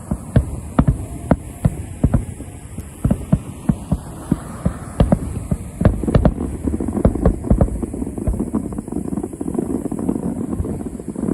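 Distant fireworks display: a rapid, irregular series of booms from aerial shells bursting, overlapping one another, thickening about halfway through into a continuous rumble as the barrage builds.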